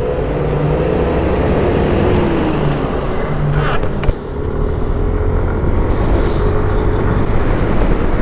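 Motorcycle engine running while riding on the road, its pitch dipping slightly a couple of seconds in, under a steady rush of road and wind noise. A brief sharp knock about four seconds in.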